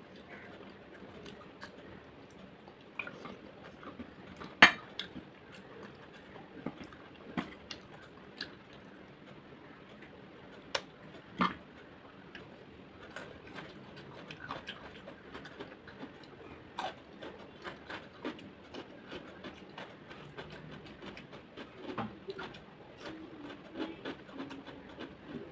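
A person eating rice and curry by hand: quiet chewing and mouth sounds with scattered short clicks and clinks at the plate, the loudest about four and a half seconds in.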